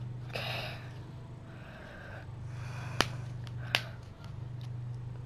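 A person breathing out softly while resting, then two sharp clicks less than a second apart about three seconds in, over a steady low hum.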